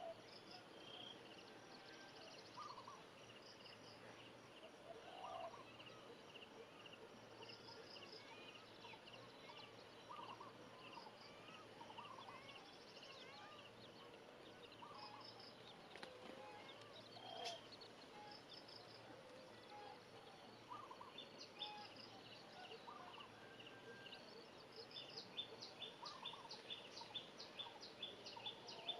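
Baby chicks peeping faintly, short high chirps throughout, with occasional lower short calls. The peeps come faster and more regularly near the end.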